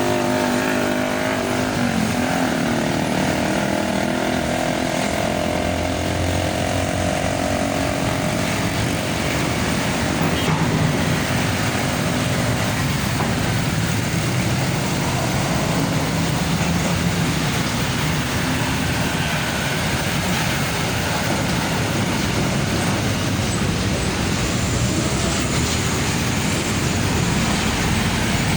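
Heavy semi-trailer trucks passing on a road. An engine's note is clear for the first several seconds, then gives way to a steady rush of engine and tyre noise.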